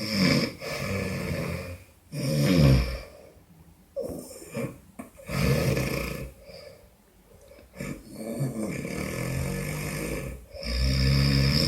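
A drunk man asleep, snoring loudly: a run of rough, rattling snores, one every couple of seconds with short pauses between breaths.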